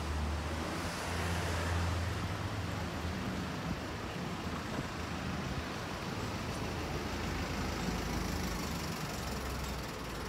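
Street traffic: motor vehicles passing, with a low engine rumble over a steady street noise. The rumble is strongest over the first few seconds and again near the end.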